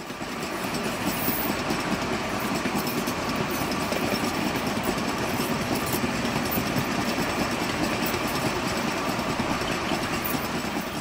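Loaded sugar cane bins on a 2 ft narrow-gauge cane railway rolling steadily past close by. The wheels click over the rail joints with a constant rumble and rattle, and there is a brief high squeal about a second in.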